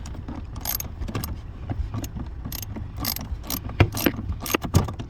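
Irregular clicks and knocks of a hand tool working screws back into the plastic trim under the dashboard, with a couple of sharper knocks near the end.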